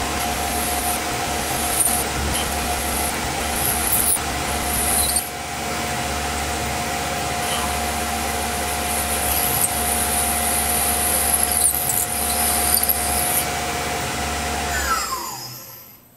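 Tormach PCNC 1100 CNC mill spindle running with a steady whine while drilling holes in aluminum plate, the cutting coming in regular short pulses. Near the end the spindle winds down with a falling pitch and stops.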